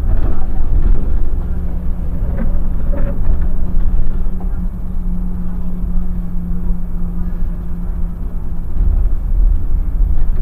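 Irisbus Crossway LE low-entry city bus running, a heavy low rumble with a steady hum through the middle of the stretch.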